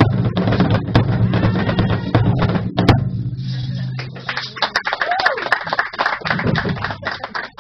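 Zulu dance drumming: large drums beaten with sticks in a dense, loud pattern over a steady low hum. About halfway through the drumming thins out to sparser separate hits.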